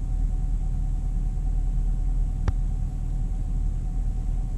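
2016 Camaro SS's 6.2-litre LT1 V8 idling steadily, heard from inside the cabin, a low rumble through its NPP dual-mode exhaust with the exhaust flaps held open by the pulled fuse. A single short click about two and a half seconds in.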